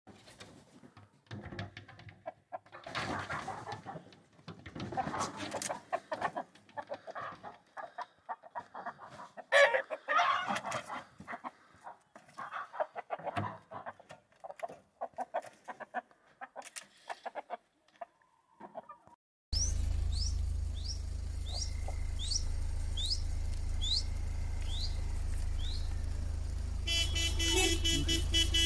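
Roosters clucking and crowing in irregular bursts, the loudest about ten seconds in. After a sudden change at about twenty seconds comes a steady low engine hum with short, high falling chirps about once a second, and a loud harsh tone near the end.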